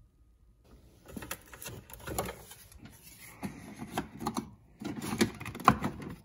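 Keurig single-serve coffee maker being handled: an irregular run of plastic clicks and clunks as its buttons are pressed and the lid is worked. The loudest is a sharp snap near the end as the lid handle is pressed shut.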